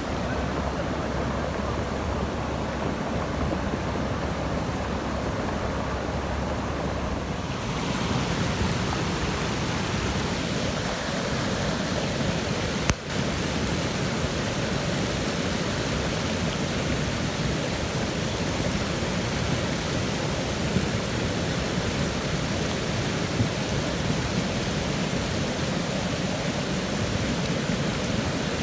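Steady rush of flowing water in a wadi, turning brighter and hissier about seven seconds in, with a single sharp click about thirteen seconds in.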